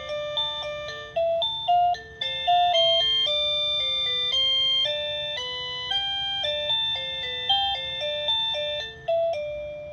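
Electronic doorbell chime playing a synthesized melody: a run of clear, bell-like single notes, the last one fading out near the end.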